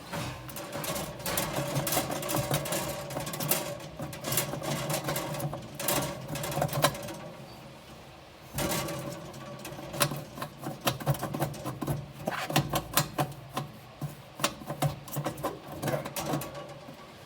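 Glass screw cap of an oven lamp being wiggled and twisted counterclockwise with rubber-gripped gloves. Irregular clicks and scrapes of glass against the metal fitting are heard over a steady low hum.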